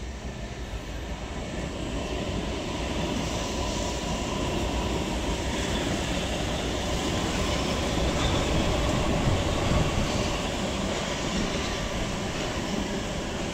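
Two Oslo Metro electric trains passing each other on the double track: a steady rumble of wheels on rail that swells over the first few seconds and is loudest about eight to ten seconds in, with a faint steady whine above it.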